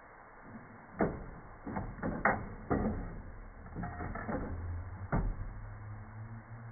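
Onkyo TA-RW244 cassette deck's auto-reverse mechanism clicking and clunking, about half a dozen knocks over several seconds as the tape head assembly shifts over to play the other side, slowed down in slow motion. A low steady tone comes in near the end.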